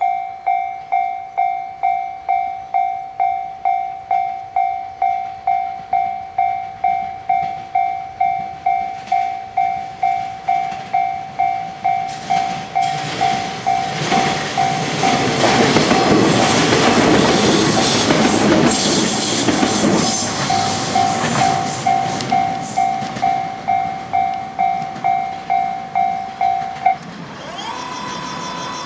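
Railway crossing alarm bell striking steadily about one and a half times a second while a yellow JR West 115-series electric train passes close by, its wheels clattering over the rail joints, loudest in the middle. The bell stops near the end and a steady whine comes in.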